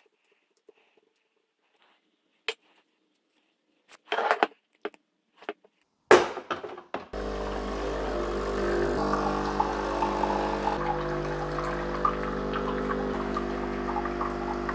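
A few clacks as a cup is set on an espresso machine's metal drip tray. About seven seconds in, the machine's pump starts and runs with a steady hum while water streams from the group head into the cup.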